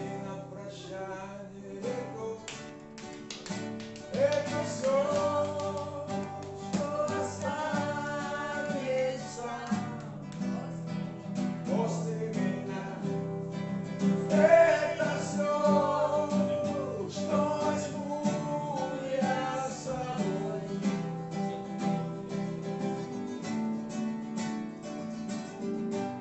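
Acoustic guitar strumming chords, with a voice singing a melody over it from about four seconds in.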